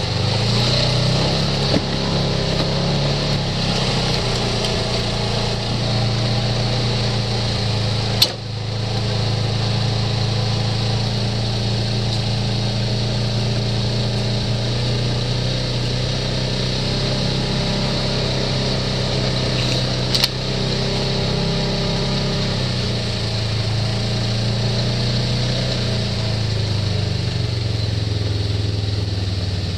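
Side-by-side UTV engine running steadily at low trail speed, heard from on board. Two sharp knocks break through, one about eight seconds in and a smaller one around twenty seconds.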